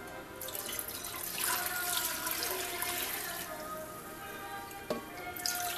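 Water poured from a glass measuring cup into a saucepan, a steady splashing pour with a faint ringing in it that dies away after about four seconds, followed by one sharp knock.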